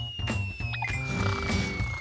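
Cartoon background music with a long, slowly falling whistle over it, the classic sound effect for something dropping from above.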